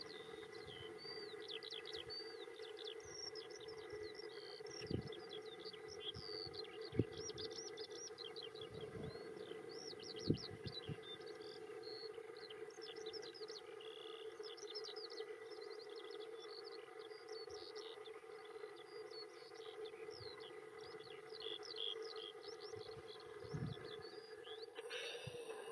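Small songbirds chirping and singing without pause in quick, high notes and trills over a steady low hum, with three sharp knocks in the first half.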